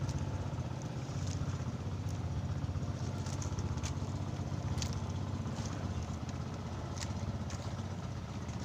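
Small fishing boat's engine running steadily, a low pulsing drone, with a few faint ticks and splashes over it.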